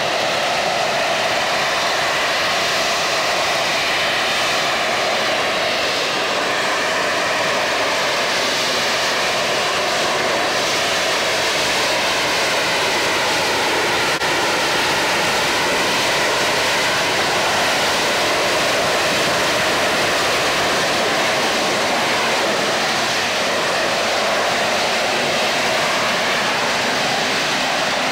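AV-8B Harrier's Rolls-Royce Pegasus turbofan running at high power to hold the jet in a hover: a loud, steady jet noise with faint tones that slowly drift up and down.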